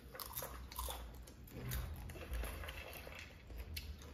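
People eating mouthfuls of popcorn, crunching and chewing, with popcorn rustling as hands dig into plastic bowls; short crisp clicks come scattered throughout.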